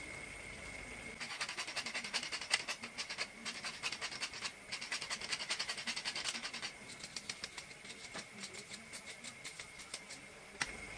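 A wooden pepper mill being twisted to grind peppercorns, giving rapid crackling clicks. The clicks are densest for the first half or so and thin out later, over a hot pan sizzling faintly.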